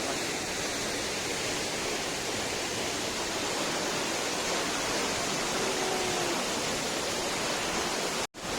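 Waterfall: a steady rush of falling water, cutting out for an instant near the end.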